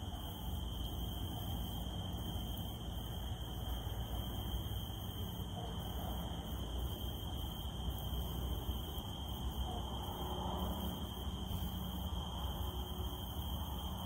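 Cicadas droning in one steady high tone, over a hiss of rain pattering and a low rumble.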